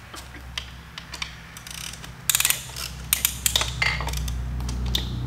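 Ratchet clicking in several short runs of rapid clicks as it tightens a band-type piston ring compressor around a piston, squeezing the rings in before the piston goes into the bore.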